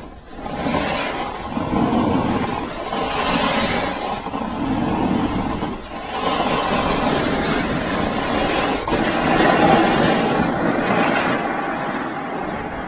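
Edges hissing and scraping over groomed snow on a downhill run, rising and falling in swells every couple of seconds as the turns link.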